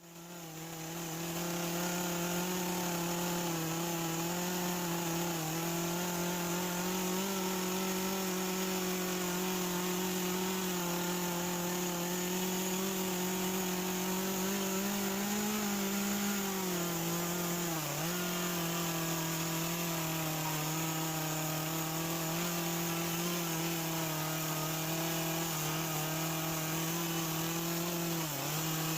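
Echo 2511 two-stroke top-handle carving chainsaw with a dime-tip bar running at steady high revs while cutting away cedar wood. The engine's pitch sags briefly twice, about two-thirds of the way in and near the end, as the chain loads up.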